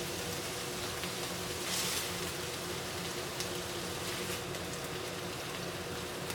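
Food sizzling in a frying pan: a steady crackling hiss with scattered pops, swelling briefly about two seconds in, over a faint steady hum.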